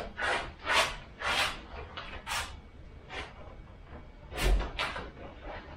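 Handling noise from a car's detached steel bonnet as it is lifted off and carried: a run of short scrapes and knocks, with a heavier dull thump about four and a half seconds in.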